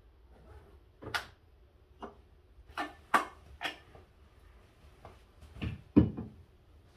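Handling knocks and clicks of a thermos bottle and its cup, a few sharp taps spread over several seconds. The loudest is a low thump about six seconds in, as the thermos is set down.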